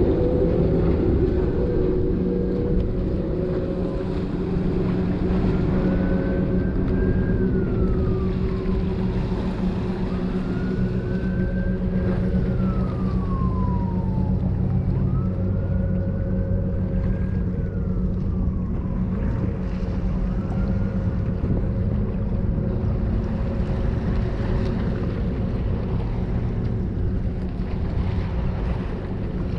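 A motorboat engine drones steadily out on the water, with wind and waves behind it. A higher whine rises and falls slowly four times in the middle stretch.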